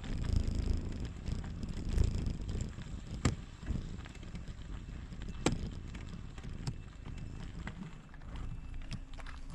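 Bicycle tyres rolling over a rough forest road, a low rumbling hiss with wind buffeting the microphone. A few sharp clicks and knocks from the bike and stones sound over it, the loudest about three and five and a half seconds in.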